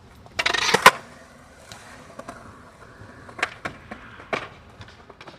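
A skateboard scrapes briefly and ends in one sharp clack about a second in, followed by a few lighter knocks.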